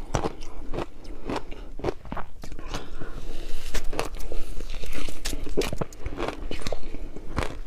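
Close-miked crunching of flavoured ice being bitten and chewed: a quick series of sharp cracks, with a denser grinding stretch in the middle.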